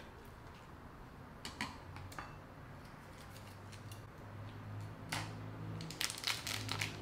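Plastic packet of frozen acai pulp being cut open with a knife and handled, with soft crinkles and small clicks that come more often in the last couple of seconds. A faint steady low hum runs underneath.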